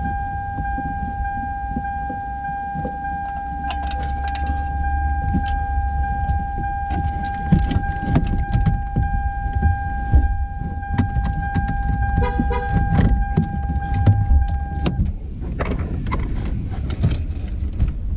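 Deep bass rumble from newly installed car subwoofers being tested, with a steady high beep that stops abruptly about fifteen seconds in, and scattered clicks and knocks of handling in the car.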